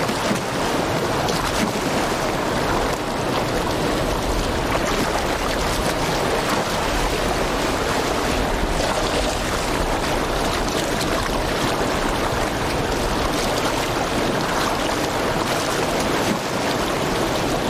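Rapids of a shallow, rocky river: a steady rush of white water over boulders.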